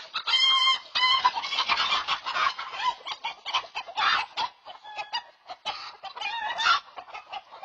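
A flock of chickens clucking and squawking, many short calls overlapping, with louder squawks about a third of a second in, at about four seconds and near six and a half seconds.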